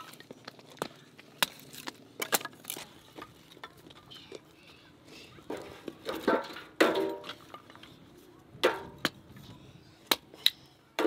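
Scattered sharp knocks and clinks of kitchen work, with a few short voice sounds in the second half.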